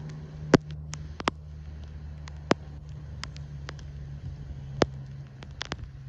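A steady low motor hum, with about nine sharp, irregular clicks over it; the loudest click comes about half a second in.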